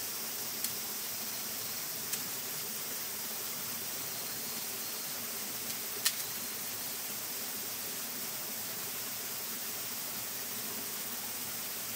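Steady outdoor hiss, even and high-pitched, with three short sharp clicks, the loudest about six seconds in.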